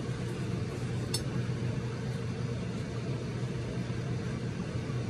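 A stove's blower fan running with a steady hum; it comes on by itself when the stove gets too hot and will not switch off. A single short click about a second in.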